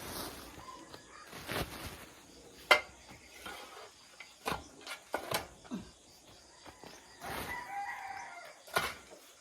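Backyard chickens clucking, with a rooster crowing once about seven seconds in. Around them are sharp knocks and scrapes, the loudest about three seconds in, fitting tools working in the manure under the coop.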